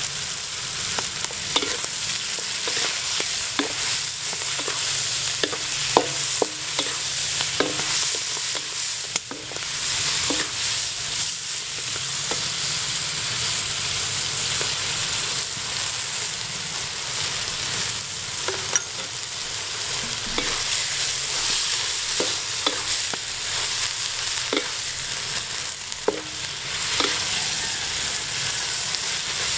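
Mussels sizzling in a hot wok as they are stir-fried, a steady hiss broken by irregular knocks and scrapes of a wooden spatula against the wok.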